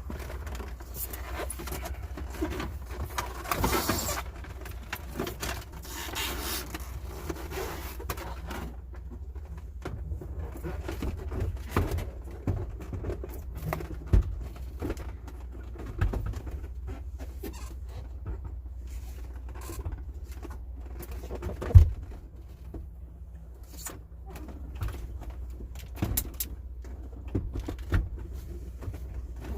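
Steady low hum with scattered clicks and knocks, denser rustling and scraping in the first several seconds, and one sharp knock about 22 seconds in.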